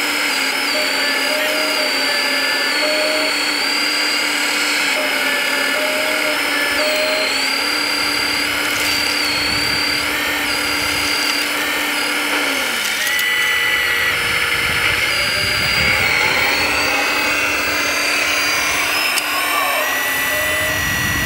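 Whine of 1/14.5-scale RC construction machines' electric motors, the pitch stepping up and down as the controls are worked. From about halfway through, a rougher low rumble joins underneath.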